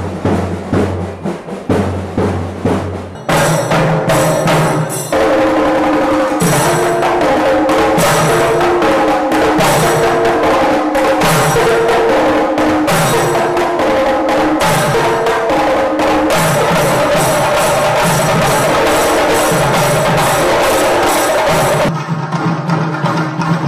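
Kerala chenda drums played by a troupe of drummers with sticks: a fast, dense rolling beat that starts about three seconds in and is loud from about five seconds on.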